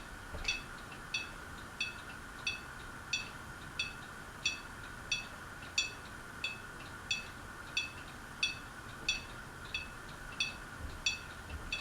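A ceiling fan's pull chain tapping against the glass of its light kit as the fan runs, giving a short ringing clink about one and a half times a second over a steady faint hum.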